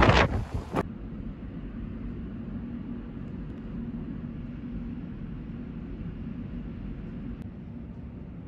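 Wind buffeting the microphone, cut off abruptly just under a second in, then a steady low hum with a faint steady tone.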